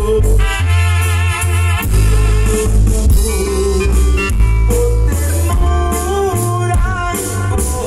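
A live band playing through PA speakers: a melody with vibrato over a heavy bass line and a steady beat, led by electronic keyboards.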